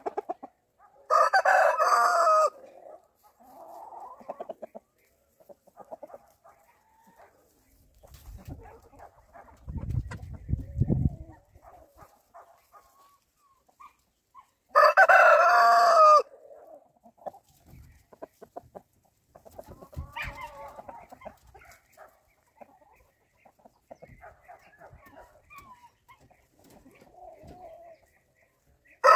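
Rooster crowing twice, once about a second in and again about halfway through, each crow loud and about a second and a half long. Softer clucking between the crows, with a brief low rumble about ten seconds in.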